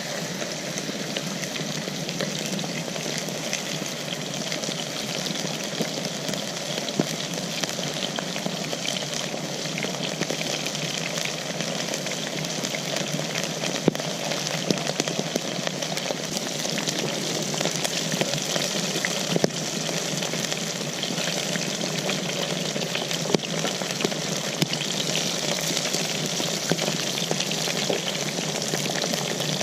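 Potatoes frying in hot oil over a campfire: a steady sizzle with scattered sharp pops.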